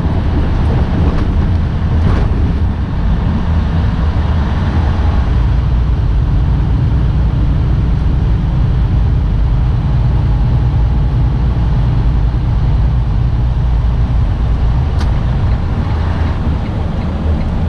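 Steady low rumble of a tractor-trailer's engine and road noise, heard inside the cab while cruising on the highway.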